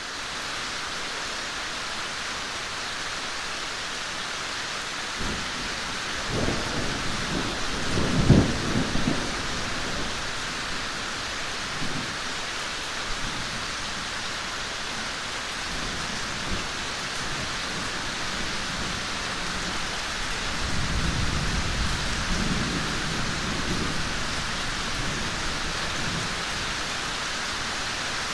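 Steady rain falling in a forest, an even hiss throughout. Low rumbles swell through it twice, the louder one about six to ten seconds in, the second near the end.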